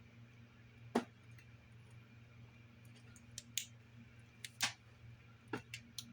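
About eight short, sharp clicks and taps of small hard objects being handled: one about a second in, then a cluster of clicks in the second half, over a faint steady hum.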